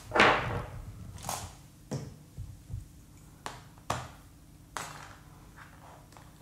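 Small objects being handled on a desk: a louder rustling knock about a quarter second in, then a string of light clicks and taps as a plastic glue bottle and small tools are picked up and set down.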